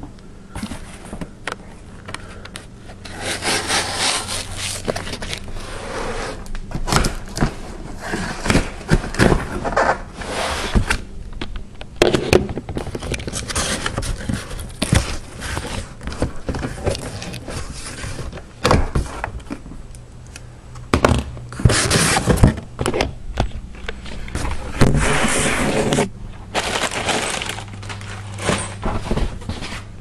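Cardboard shipping box being torn open by hand: repeated tearing and scraping of cardboard and packing tape, with knocks and thumps as the flaps and contents are handled.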